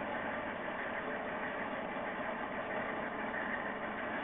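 HO-scale model train running along its track, heard close up from a camera mounted on one of its cars: a steady mechanical whir.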